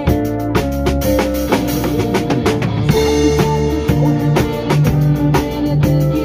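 A live band playing music: a steady drum beat with cymbals over sustained chords.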